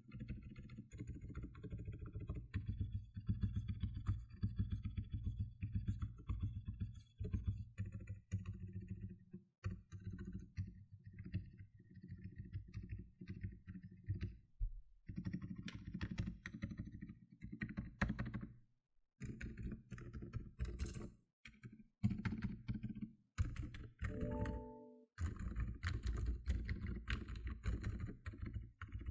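Fast, continuous typing on an FL Esports CMK87 mechanical keyboard with lubed and filmed Outemu Silent Peach switches and XDA-profile keycaps. The keystrokes are dampened and low-pitched, with a few short pauses in the typing.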